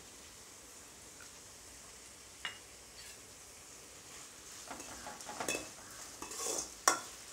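Sliced onions, tomatoes and ginger-garlic paste sizzling faintly in oil in a metal kadai, stirred with a spoon: a single clink a couple of seconds in, then a run of scrapes and clinks of the spoon against the pan in the second half, the sharpest one near the end.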